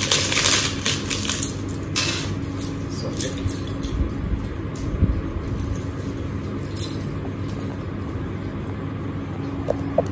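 A small paper wrapper rustles and metal earrings jingle as they are unwrapped and handled, busiest in the first two seconds and then only the odd tick. A steady low hum runs underneath.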